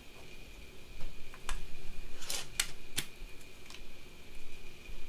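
A few sharp plastic clicks and knocks from a Nerf blaster being handled and readied between shots. They are grouped a second or two in, the loudest cluster coming about halfway.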